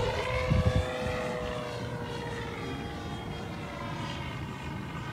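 Radio-controlled P-47 model airplane in flight: electric propeller noise blended with the simulated radial-engine drone of an ESS-Air sound unit. The pitch sags and then rises again as it flies. A brief low thump comes about half a second in.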